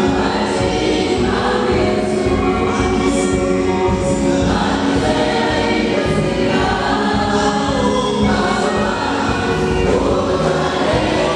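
Mixed choir of women and men singing a gospel song through microphones, with a steady beat underneath.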